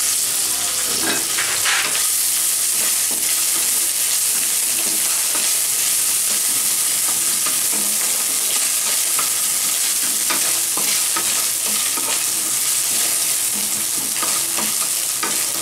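Diced coconut sizzling steadily in hot mustard oil in a kadai, stirred with a wooden spatula that scrapes and taps faintly against the pan.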